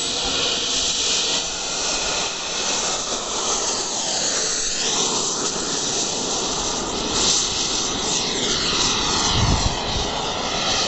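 A radio-controlled model jet's engine running at high power with a loud, steady hiss as the model makes its take-off run and climbs away. Its pitch falls twice as it moves off.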